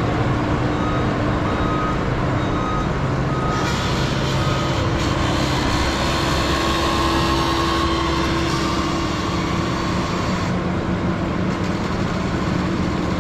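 Diesel engine of a farm machine running steadily, louder in the middle. A backup alarm beeps about four times in the first few seconds as the machine reverses.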